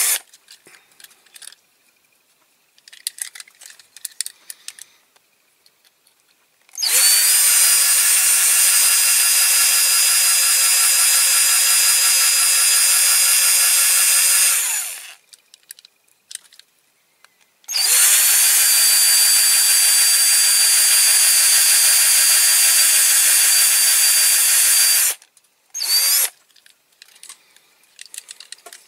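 Electric drill with a small bit drilling out the rivets in the metal base of a diecast toy car. It runs at a steady speed in two long stretches, starting about seven seconds in and again about eighteen seconds in, then gives a short burst near the end. Small handling clicks fill the pauses between runs.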